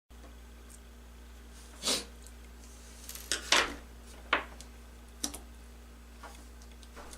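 A handful of sharp clicks and taps, about five spread over a few seconds, from small tools and tablet parts being handled against a hard work surface while a tablet's motherboard is unscrewed and freed.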